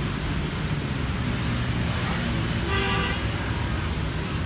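Steady low rumble of street traffic. About three seconds in, a brief pitched tone sounds over it.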